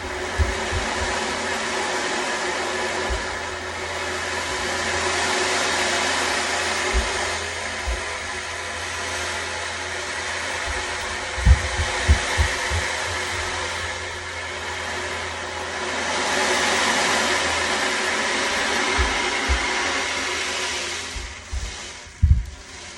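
Ocean drum: beads rolling across the drumhead in a surf-like wash that swells and fades twice, over the steady ringing tones of a singing bowl. Dull low thumps about halfway through and again near the end, from children running upstairs, like a heartbeat.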